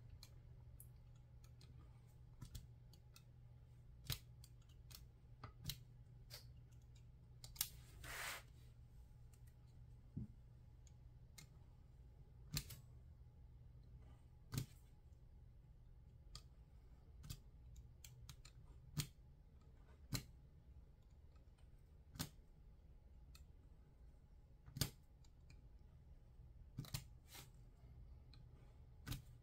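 Faint, sparse clicks of a craft knife blade cutting through paper on a cutting mat, one every second or two, with a short rustle about eight seconds in, over a low steady hum.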